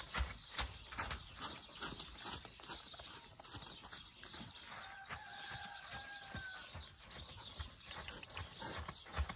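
Horse's hooves thudding on soft dirt as it moves in circles on a lunge line, an uneven run of footfalls. A faint held tone sounds for about two seconds midway.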